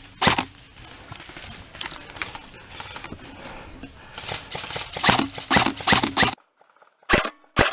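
Footsteps of a player running over hard ground, a regular thud about twice a second. The sound cuts out abruptly a little after six seconds, then the steps come back faster, about three a second.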